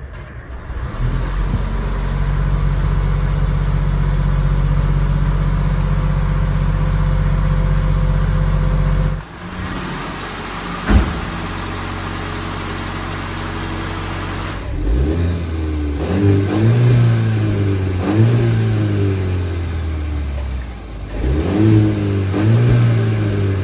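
Mercedes-Benz GLC Coupe engine holding a steady raised idle, which drops to a lower idle about nine seconds in. A single click sounds shortly after, and in the second half the engine is blipped in a series of short revs, each rising and falling back.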